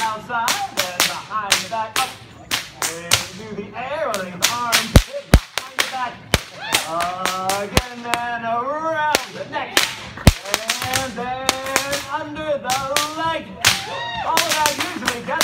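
Two whips being cracked, one in each hand: sharp cracks in fast runs of several a second, broken by a few sparser stretches around four and nine seconds in, then a dense run near the end.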